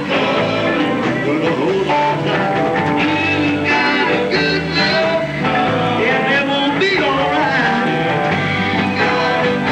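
Rock band playing live, with electric guitar over bass and drums and a man singing. The recording is overdriven, with the gain set too hot, so the sound is heavily distorted.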